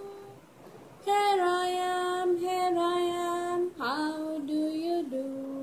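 A voice singing a children's colour song in long, held notes. A held note ends about half a second in, and after a short pause the singing resumes about a second in, with a quick upward slide into a note near the four-second mark.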